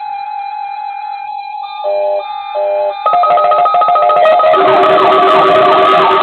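Music: a held tone with two short groups of notes, then about three seconds in a louder, busier guitar-led passage comes in.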